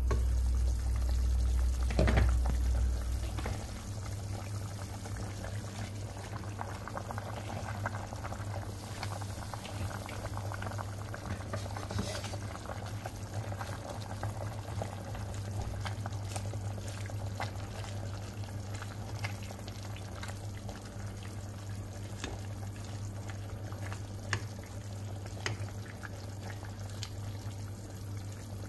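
Chicken and chayote soup bubbling at a boil in a stainless steel pot, under a steady low hum, with a knock about two seconds in and faint scattered ticks.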